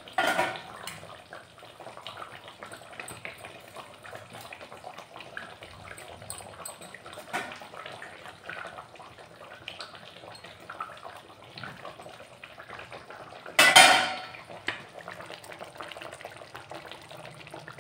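Flat spatula stirring and scraping in an iron kadhai of simmering fish curry, with small clinks against the pan. One loud scrape or knock on the pan comes about three-quarters of the way through.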